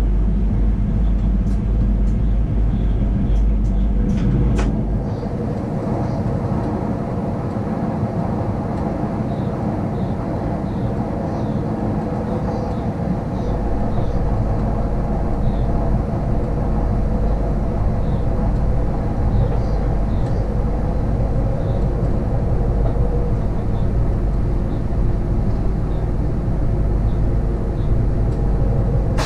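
Cab noise of a Sydney Trains Millennium electric train running along the track: a steady rumble of wheels on rail with a hum from the running gear, and a few sharp clicks in the first five seconds. The low rumble eases a few seconds in and builds back up about halfway through.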